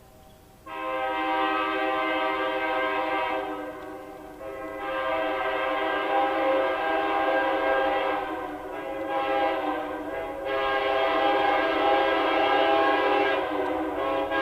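Locomotive multi-chime air horn sounding the grade-crossing signal: two long blasts, a short one, then a long one that carries on. It is loud and steady in pitch, with the chime's several notes sounding together.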